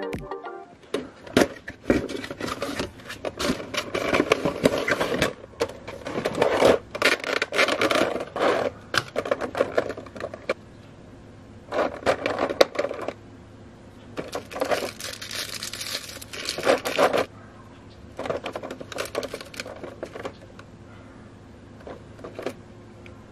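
Clear plastic figure packaging handled by hand as the box is opened: the blister tray crinkling, crackling and clicking in repeated bursts with short pauses between.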